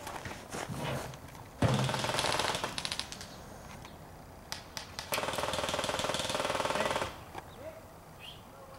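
Airsoft gun firing full-auto in two bursts, a short one about a second and a half in and a longer one of about two seconds later, each a rapid, even run of shots, with scattered single pops between them.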